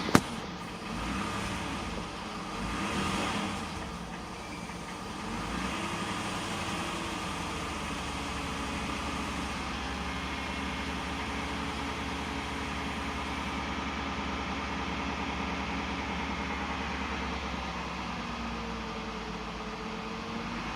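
A V6 engine running with a knock. A single sharp click right at the start, then the engine's level swells twice over the first few seconds before settling into a steady run.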